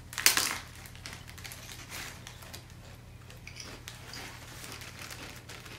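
Potato chips being bitten and chewed while plastic zip-top snack bags are handled: a loud crackle about a third of a second in, then scattered soft crackles and clicks.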